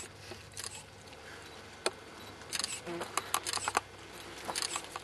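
Scattered sharp clicks, including a quick run of several in a row about three seconds in, with small handling noises over a faint steady room background.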